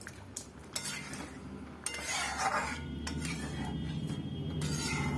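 A metal spatula stirring thick spinach and paneer gravy in a kadai, scraping and clinking against the pan.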